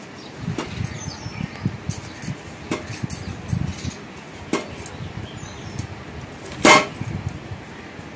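Scattered light knocks and clinks of small household items being handled, with one sharper, louder knock about six and a half seconds in.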